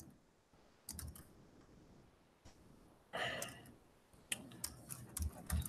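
Faint typing on a computer keyboard: a few keystrokes about a second in, then a quicker run of key clicks in the last second and a half.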